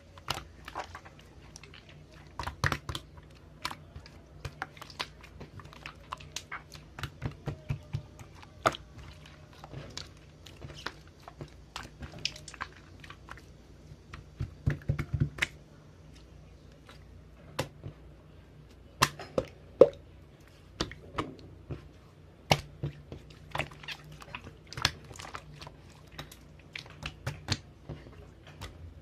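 Slime being squished and kneaded by hand, giving many irregular sticky clicks and little air-bubble pops, with a low steady hum underneath.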